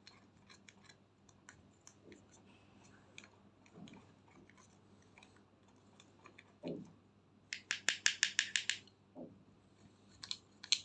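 Small plastic spatula scraping pressed eyeshadow powder out of a metal compact pan: faint scratches and clicks, with a quick run of about ten sharp scraping strokes about three-quarters of the way through.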